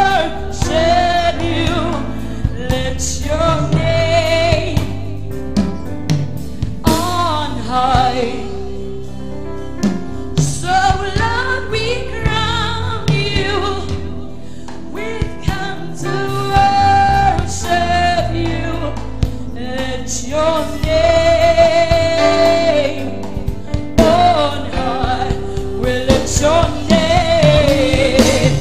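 Live gospel worship song: a woman sings lead into a microphone over sustained instrumental accompaniment, with backing vocalists joining.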